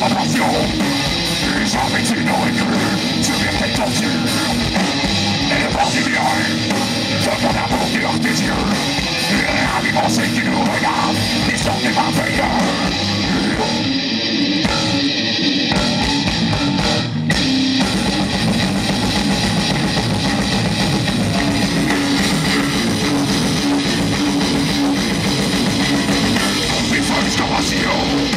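Heavy metal band playing live: distorted electric guitars over a drum kit, loud and dense, with a short thinning of the sound about halfway through before it comes back full.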